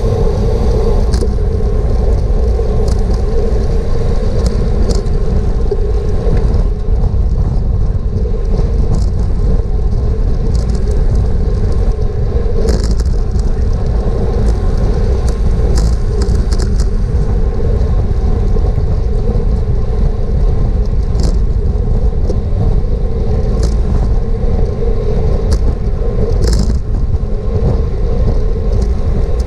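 Steady wind rumble on a bicycle-mounted action camera's microphone while riding at speed, mixed with tyre and road noise, with a few short clicks scattered through it.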